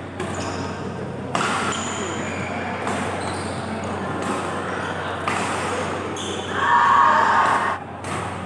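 Badminton rackets striking a shuttlecock during a doubles rally in a large hall: three sharp hits a second or two apart, ringing in the room. Near the end comes a loud shout lasting about a second, the loudest sound here.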